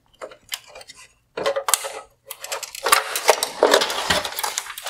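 Small plastic clicks as wire clips are worked free from a car headlight's plastic bezel. About two seconds in, a couple of seconds of dense plastic clattering and scraping follow as the bezel is pulled away from the housing and handled.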